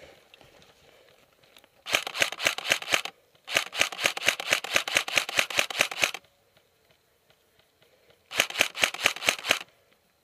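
Airsoft rifle firing close by in three rapid strings of shots, about eight a second. The first string lasts about a second, the second nearly three seconds, and the third about a second and a half, with short pauses between.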